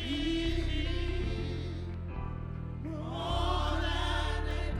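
Gospel praise music: a band with steady bass holding under voices singing a sustained line, the singing swelling again about three seconds in.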